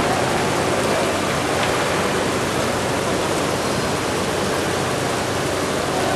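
Water curtain running: a steady sheet of falling water splashing down as an even hiss.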